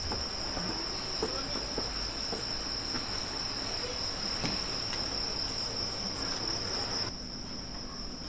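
Crickets trilling in one steady, unbroken high-pitched note, with a few faint taps.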